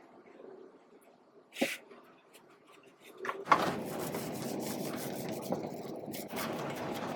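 A single sharp knock on wood, then a woodworking tool starts working wood about three and a half seconds in: a steady rough rasping noise with scattered crackling clicks.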